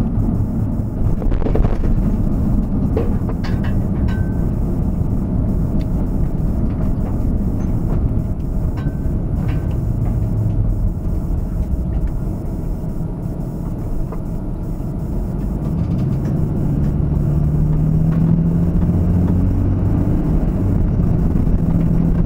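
Road and engine noise inside a moving vehicle: a steady low rumble with a few faint clicks. In the last few seconds a low engine tone comes up and slowly rises in pitch as the vehicle gathers speed.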